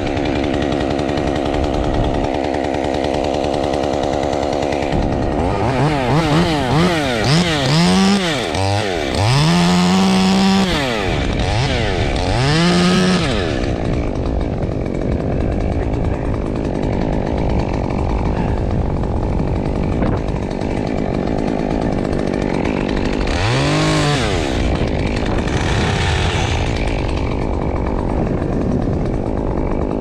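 Muffler-modded two-stroke Stihl top-handle chainsaw idling, then revved up and down several times between about 5 and 13 seconds, held at high revs briefly, and revved once more near 24 seconds. Wind noise rushes throughout.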